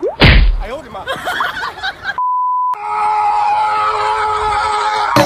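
A loud thump with excited voices, then a half-second censor bleep, a single pure beep tone, about two seconds in. After it comes a steady hum of several held tones under a noisy hiss, cut off by a sharp click near the end.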